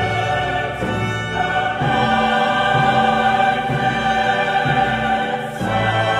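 Background music: slow choral and orchestral music with long held chords, changing about two seconds in and again near the end.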